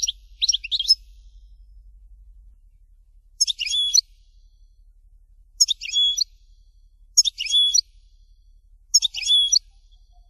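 European goldfinch (chardonneret) singing: five short phrases of quick, high twittering notes, with pauses of one to three seconds between them.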